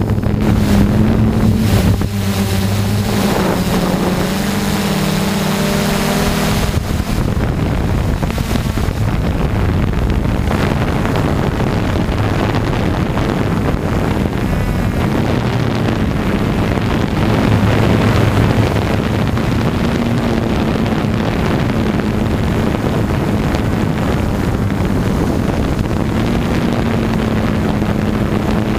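Electric motors and propellers of a DJI Flame Wheel multirotor drone droning in flight, heard from its onboard camera, with wind rushing over the microphone. About two seconds in, the motor pitch wavers and shifts for several seconds, then settles back to a steady drone.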